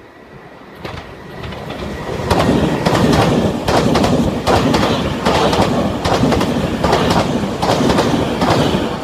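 Meitetsu 2200-series train passing through the station at speed. Its wheels clatter loudly over the rail joints in a steady run of paired clicks, growing louder about a second in.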